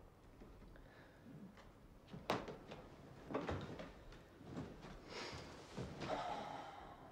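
A few soft knocks and handling noises, the sharpest a little over two seconds in, with a brief rustle about five seconds in.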